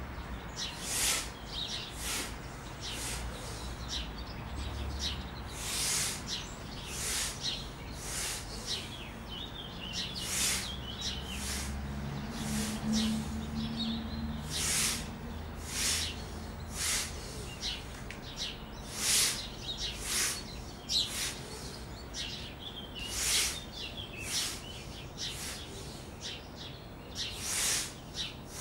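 Short, sharp breaths forced out about once a second in a steady rhythm: forceful exhalations driven by abdominal contractions.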